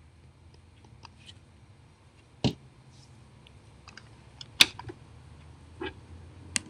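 Stylus tapping and clicking on a tablet screen while handwriting notes: a few scattered sharp taps, the two loudest about two and a half and four and a half seconds in, over a low steady hum.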